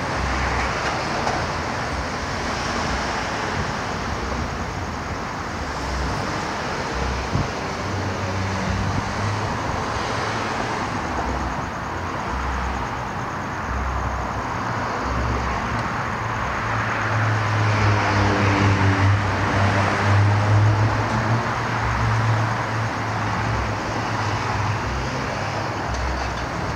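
Steady road traffic noise, an even hiss of passing cars. About two-thirds of the way through, a vehicle's low engine hum swells louder for several seconds and then fades back.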